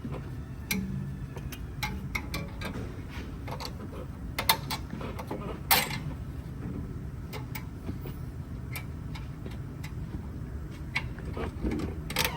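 Scattered metal clicks and clanks of hand tools and exhaust parts as the downpipe is bolted up to the exhaust, with two sharper knocks about four and a half and six seconds in, over a steady low hum.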